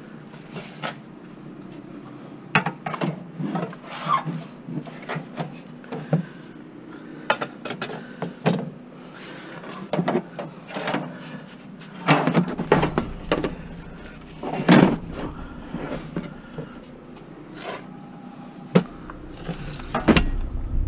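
Irregular knocks, clicks and rubbing, as of hard objects being handled and moved about. A low rumble comes in about twelve seconds in and stops about six seconds later.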